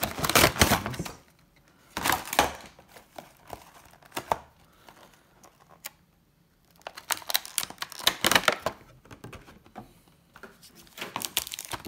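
Clear plastic blister tray and cardboard packaging of a Pokémon trading card box being handled and pulled apart: crackling and crinkling in several bursts with quiet gaps between.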